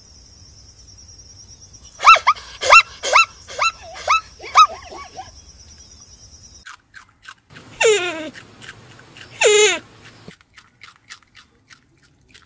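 Animal calls: a quick run of about six short yelping calls, each dropping in pitch. After a pause come two longer calls that slide down in pitch, then faint ticks near the end.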